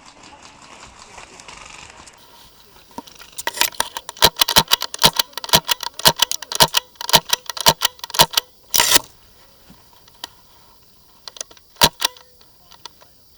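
Airsoft gunfire: a rapid, irregular run of sharp snaps, several a second, for about five seconds, then a few scattered single shots near the end.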